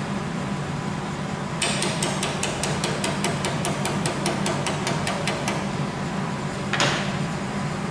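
Handheld fiber laser welder pulsing on a stainless steel seam: a fast run of sharp ticks, about five a second for some four seconds, then one longer crackling burst near the end, over a steady low hum.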